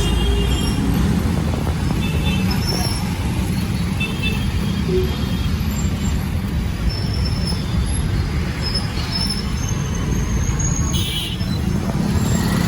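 Street traffic: a steady rumble of passing road vehicles, with short high-pitched tones here and there.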